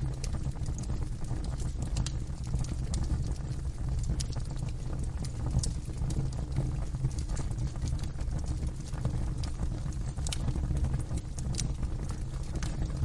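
Wood fire burning in a fireplace: a steady low rumble with irregular sharp crackles and pops scattered throughout.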